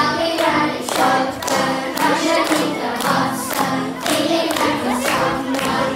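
Group of children singing a song together, accompanied by a strummed acoustic guitar, with hands clapping along about twice a second.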